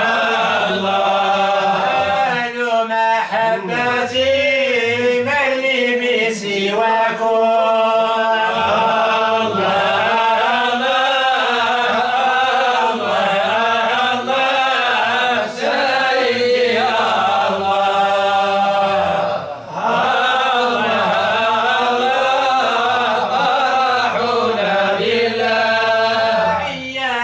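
A solo male chanter (musammi') sings an unaccompanied Sufi devotional song in a long, ornamented, winding melody over a steady low held note.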